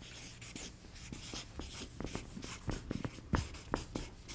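Marker writing on a flip-chart pad: a run of short, irregular scratchy strokes, with a couple of light taps a little over three seconds in.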